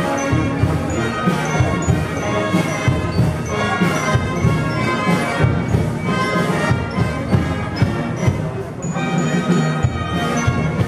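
Guatemalan procession band of brass, woodwinds and percussion playing a slow processional march, trombones prominent, with regular strikes on the beat and a brief softer moment near the end.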